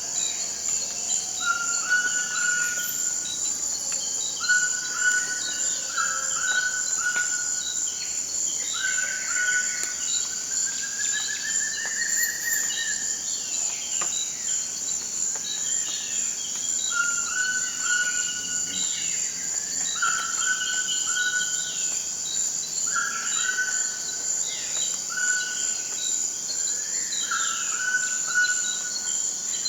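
Rainforest chorus: a steady high insect drone with many birds calling over it, one bird repeating the same short call every couple of seconds and another giving a slow rising call around a third of the way in.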